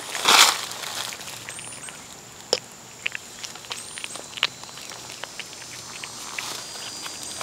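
Cat eating wet tuna from a bowl close up, making wet chewing and smacking clicks. The clicks are small and irregular, with a louder stretch of eating noise near the start.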